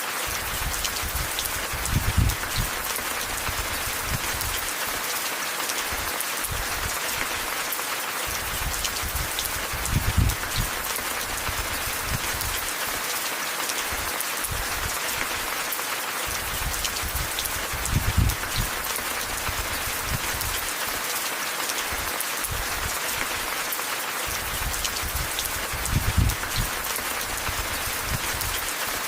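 Steady rain pattering with an even hiss, broken by a low, dull thump four times, about every eight seconds.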